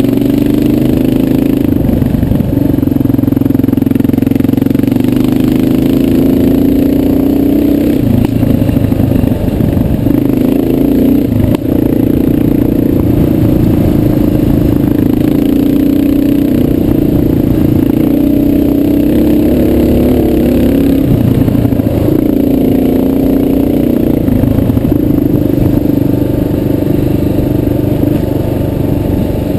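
Motorcycle engine running while riding along a dirt road, its note dipping and picking up again a few times as the speed changes.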